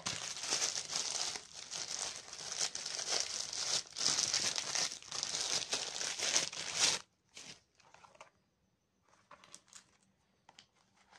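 Plastic parcel wrapping being torn open and crumpled by hand, a dense crinkling and tearing for about seven seconds. After that only a few light rustles and clicks while a small plastic box is handled.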